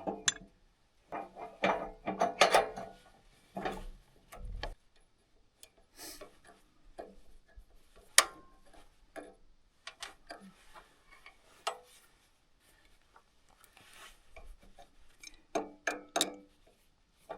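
Hand tools working on a tractor-mounted post pounder while its hydraulic cylinder is swapped: scattered metal knocks, clinks and scraping at irregular intervals, with short quiet gaps between.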